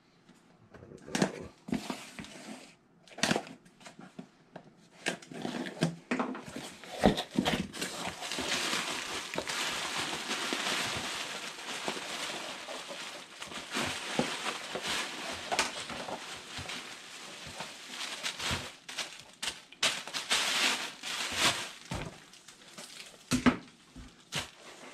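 Cardboard box handled and opened with a few knocks and taps, then bubble-wrap packing pulled out and handled, a long stretch of crinkling and crackling.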